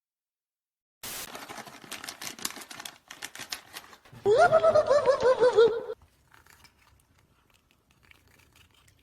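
Rapid scratchy clicking for about two seconds, then a loud, wavering animal cry lasting under two seconds.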